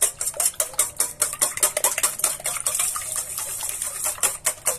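Wire whisk beating two raw eggs in a stainless steel bowl: quick, even strokes, the whisk clicking against the metal bowl several times a second.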